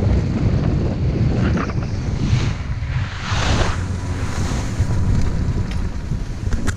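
Wind buffeting the microphone of a helmet-mounted action camera as a skier glides over packed snow, with the hiss of skis scraping the snow swelling twice, about two and three and a half seconds in.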